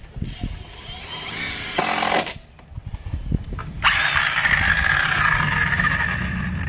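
Power tool running in two bursts: a whine that builds for about two seconds and stops, then after a short pause starts again sharply and runs on.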